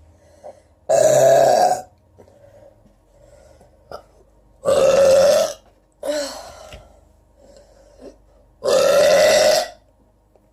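A woman's loud, long burps brought up by fizzy soda: three of them, each just under a second, about four seconds apart.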